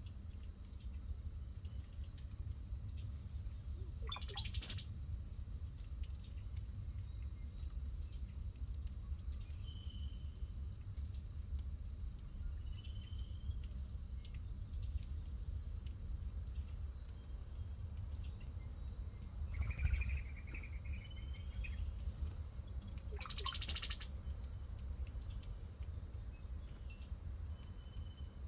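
Wild birds calling: two short, loud calls, one about four seconds in and one near the end, with a few faint chirps between. Under them runs a steady high insect drone, typical of crickets, and a low rumble.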